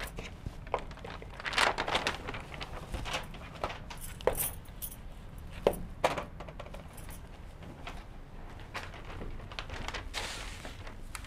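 Handling noises from a paper letter chart being taken down off a whiteboard: rustling with a few sharp clicks and knocks, and a longer rustle near the end.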